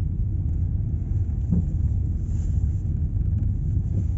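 Camper van driving over a rough, potholed road: a steady low rumble of engine and road noise, with a few faint knocks from bumps.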